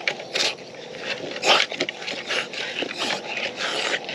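A bully-breed dog close by, breathing and snuffling in short, rough bursts about two a second.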